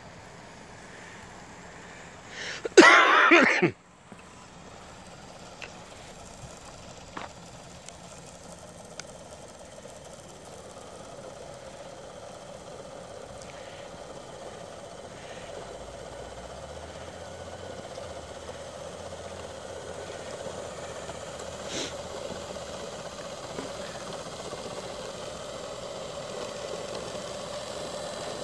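The motors and auger of a 6x6 RC snowblower truck running steadily with a constant hum that slowly grows louder as it clears snow. About three seconds in, a brief loud burst of noise covers it for about a second.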